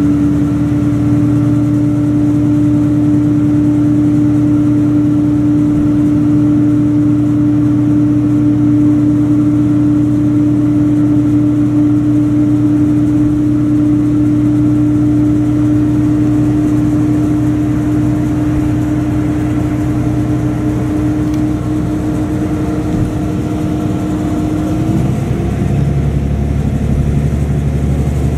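KiHa 40 series diesel railcar's engine pulling the train away under power, heard from inside the carriage: a steady engine drone with a strong humming tone that climbs slowly, then changes note about three-quarters of the way through.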